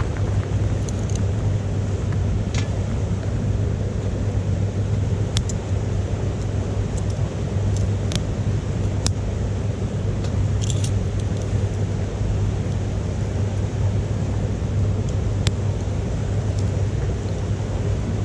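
Wood fire burning in a small titanium wood stove, giving scattered sharp crackles and pops every second or few, over a loud, steady low rumble.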